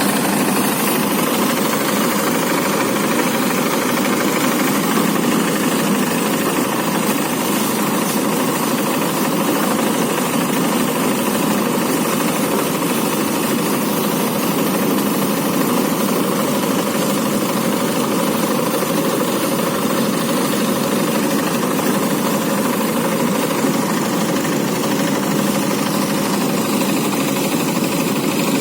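Engine-driven rice thresher running steadily at a constant speed.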